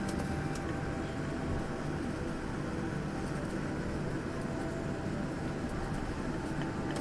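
Steady cabin noise inside a jet airliner as it taxis after landing: a low engine hum and rush, with a few faint clicks and rattles.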